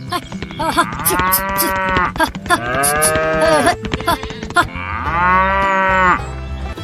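A cow mooing: three long moos, each rising and then falling in pitch.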